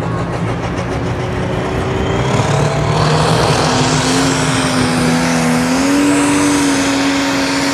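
Pro Stock pulling tractor's turbocharged diesel engine revving, its pitch climbing over the first few seconds and then holding high, with a turbo whistle rising steeply above it.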